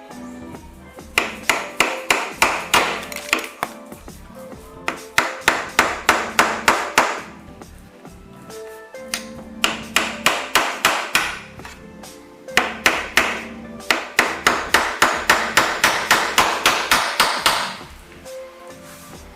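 Hammer driving small nails, in quick runs of rapid, even strikes with short pauses between the runs.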